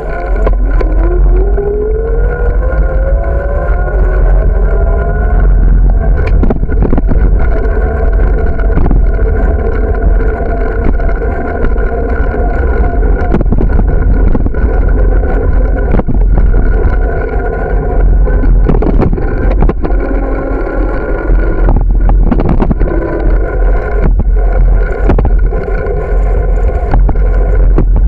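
A bicycle rolling fast on a paved street, with heavy wind buffeting on the microphone and road noise. A whirring tone rises in pitch over the first few seconds as the bike picks up speed, then holds steady. Short knocks and rattles come from bumps and cracks in the pavement.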